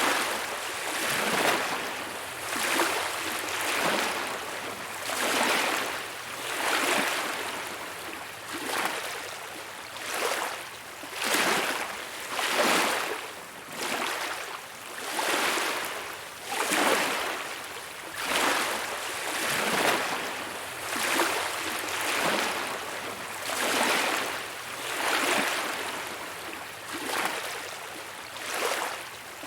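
Small waves lapping on a beach shore, a soft wash of water swelling and fading about every one and a half seconds.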